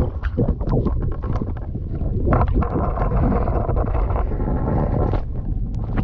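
Muffled underwater sloshing with a steady low rumble and scattered knocks, as picked up by a camera held underwater in a lake beside a small boat, where a landed toman (giant snakehead) lies in the landing net.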